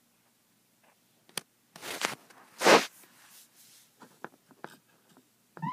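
Handling noise from an opened CB base microphone being worked on: a sharp click, two loud rustling scrapes, then scattered small clicks. Right at the end a rising electronic chirp starts, the Tweetie Bird roger beep sounding.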